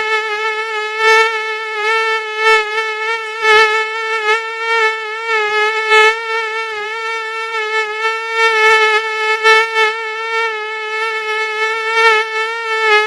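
Mosquito whine: a steady, high buzz of wingbeats that wavers slightly in pitch and swells and fades irregularly in loudness.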